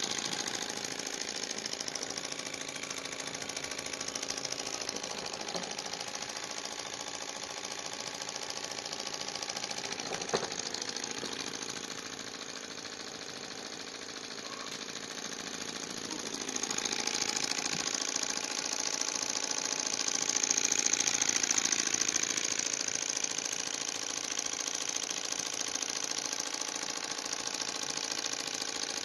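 Small model Stirling engine running, a continuous mechanical whirr. It dips in level around the middle and grows louder again after that.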